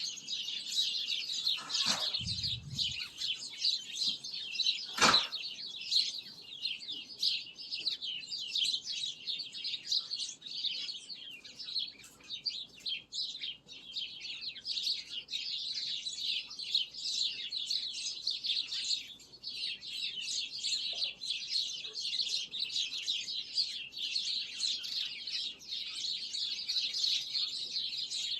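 Many small birds chirping at once in a dense, continuous chorus of short high notes. There is a low thud about two seconds in and a sharp click about five seconds in.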